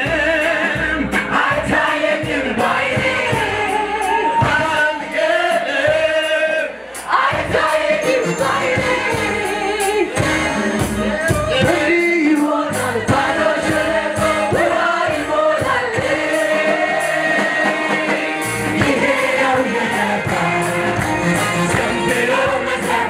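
Mixed choir of men and women singing a lively gospel worship song over a band with drums.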